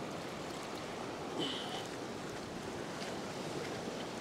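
Ocean waves washing and surging over a rock shelf, with wind on the microphone. A short high squeak comes about a second and a half in.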